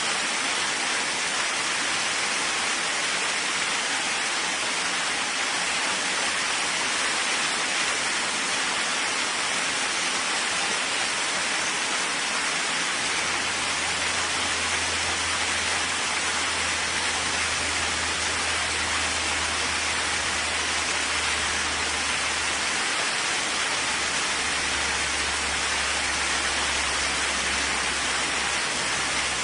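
Steady rainfall, an even hiss of rain coming down. A low rumble joins it about halfway through and carries on, dipping briefly near the end.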